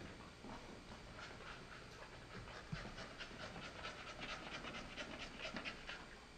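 American Staffordshire Terrier panting rapidly as he trots on the leash, about four quick breaths a second.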